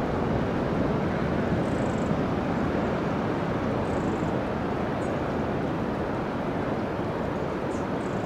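Steady rush of sea surf breaking on the beach, mixed with wind, with a few faint short high chirps.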